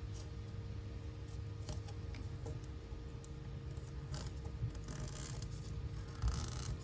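Small razor knife slicing through excess window-screen mesh along the rubber spline: faint, uneven scratchy cutting with small ticks, busiest a little past the middle.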